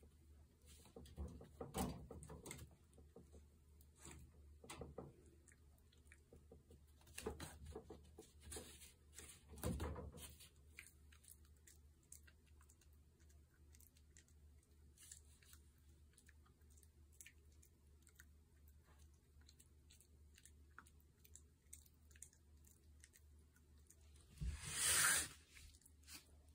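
Toy poodle puppy biting and chewing at a fabric scarf through a wire playpen, trying to tear it: soft scattered chewing clicks and cloth rustles, busiest in the first ten seconds and sparser after. A loud brief rustle near the end.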